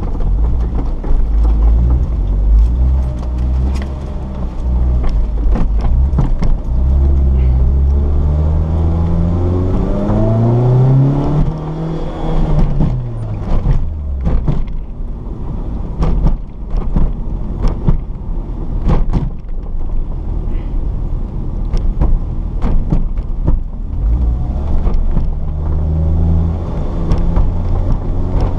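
Lotus Exige's engine heard from inside the cabin, its pitch rising as it revs up, then easing off about twelve seconds in. After that come repeated sharp knocks and thumps from the wheels and suspension over rough, cracked pavement, with the engine running underneath.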